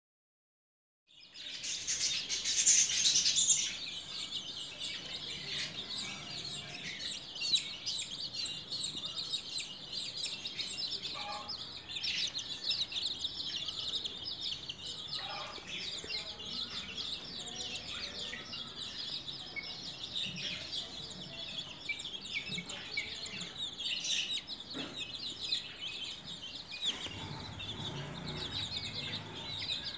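Two-week-old domestic chicks peeping: a dense run of overlapping high-pitched peeps that starts about a second in and is loudest in the first few seconds.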